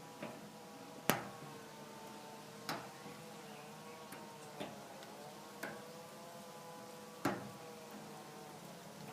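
Sharp metallic clicks, about six at irregular intervals, the loudest a little past one second in, from a lock pick and tension wrench working the pins of a rusty Fortress 30mm brass padlock. A faint steady drone runs underneath.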